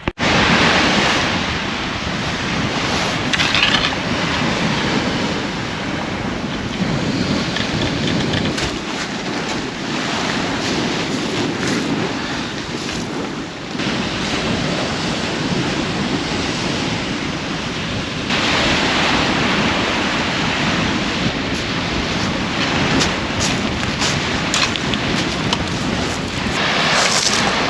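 Waves washing on the beach with wind blowing across the microphone, the noise stepping down about halfway through and back up a few seconds later.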